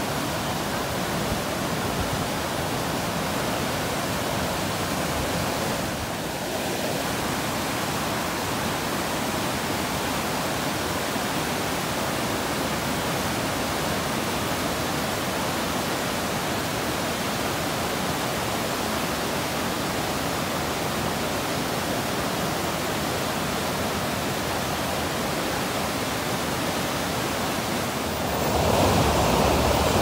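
Whitewater river rapids rushing over boulders, a steady hiss of water that briefly dips about six seconds in and gets louder near the end.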